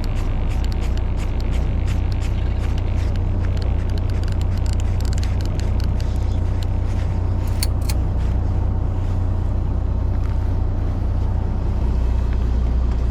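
Steady low drone of a fishing boat's engine running, with two sharp clicks about two-thirds of the way through.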